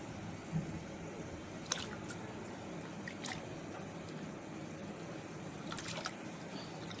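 Liquid sloshing in a cooking pot of water mixed with ground spices and pastes, with a few light utensil clicks against the pot.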